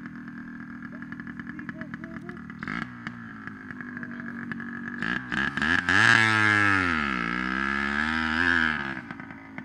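Small off-road engine running steadily, then revving hard about six seconds in as the rider climbs a dirt hill, its pitch dipping and rising again under load before easing off near the end.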